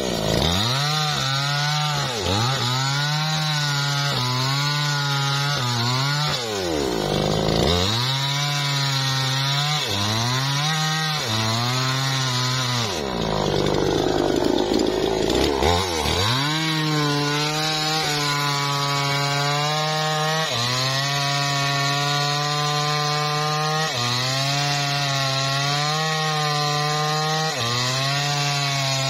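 Two-stroke chainsaw cutting into the trunk of a small teak tree near its base, the engine note dipping and recovering every couple of seconds as the chain bites into the wood.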